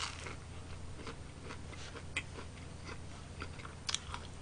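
Close-up eating of a fried cheese ball: a bite at the start, then chewing with small crunches and mouth clicks, a sharper click about two seconds in and another near the end, over a low steady hum.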